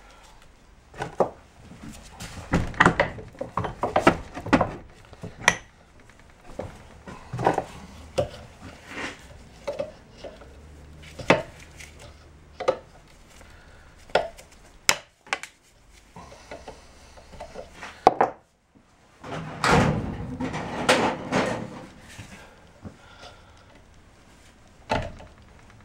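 Hand tools clinking, tapping and scraping against a Can-Am ATV's CV axle shaft clamped in a bench vise, in irregular knocks. There are denser bursts of metal clatter a few seconds in and again about three-quarters of the way through.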